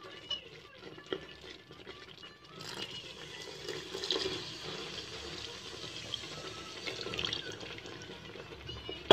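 Water pouring in a thin stream into a pot of thick jaggery-and-ada mixture, splashing steadily as the pot is thinned. The pour grows louder about two and a half seconds in.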